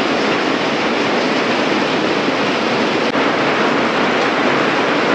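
Heavy rain falling, a loud, steady, even hiss.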